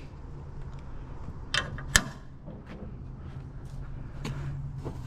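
A few sharp knocks and clinks of scrap metal pieces being handled, the loudest about two seconds in, over a steady low hum.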